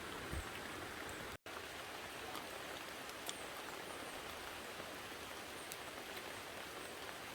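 Steady rain falling outdoors, an even hiss with scattered faint drop ticks. The sound cuts out completely for a split second about a second and a half in.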